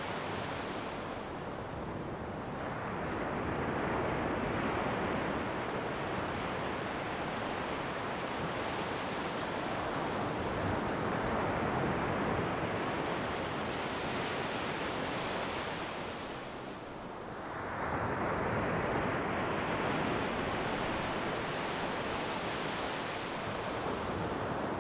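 Ocean waves breaking and washing up the shore in slow surges, each swell of surf rising and ebbing over several seconds, with a brief lull about two-thirds of the way through before the next wave comes in.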